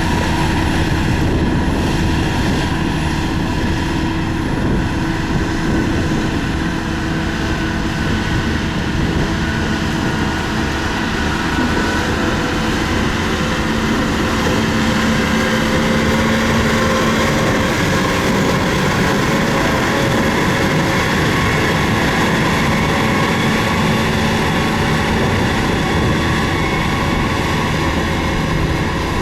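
Motor grader's diesel engine running steadily under working load, a continuous loud drone with a steady hum in it.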